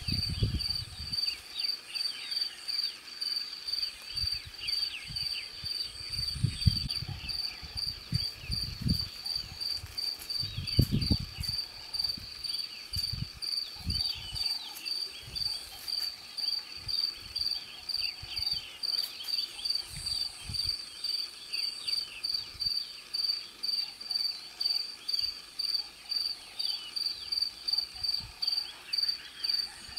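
A cricket chirping steadily at about two chirps a second, with other faint high chirps scattered behind it. Wind buffets the microphone now and then in the first half.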